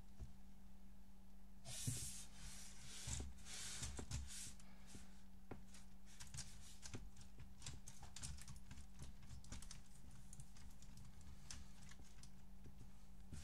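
Faint small plastic clicks and rattles of a Lego Technic model being handled, coming in quick irregular runs, over a steady low hum. A few brushing rustles come about two to three seconds in.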